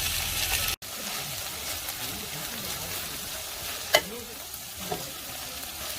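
Food sizzling in a hot pan, a steady crackling hiss, with a sharp click about four seconds in.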